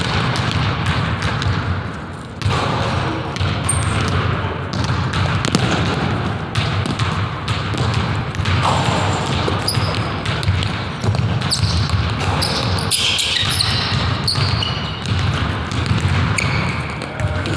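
A basketball dribbled and bouncing on a hardwood gym floor, with sneakers squeaking in short high chirps, mostly in the second half, all echoing in a large gym hall.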